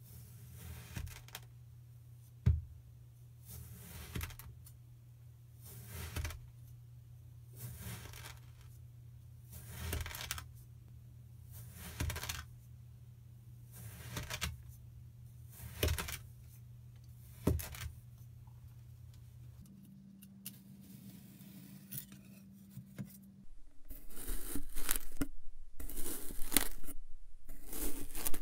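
A knife slicing through kinetic sand, a gritty crunch roughly every two seconds, over a faint low steady hum. Near the end come louder, closer-spaced crunching cuts through a block of firmly packed sand.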